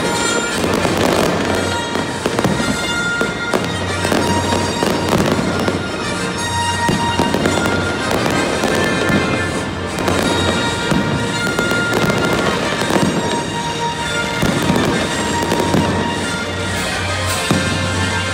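Fireworks bursting overhead in a dense run of bangs and crackles, with music playing underneath.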